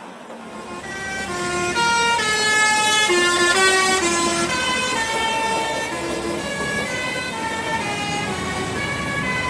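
Indonesian bus telolet horn, a Basuri multi-tone air horn, playing a quick tune of short stepped notes that starts about a second in and runs on over a low rumble.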